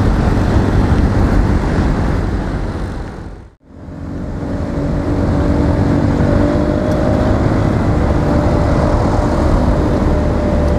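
Honda scooter riding through traffic: wind rushing over the camera microphone with the scooter's engine running under it. About three and a half seconds in, the sound briefly fades almost to nothing, then comes back with a steady engine hum.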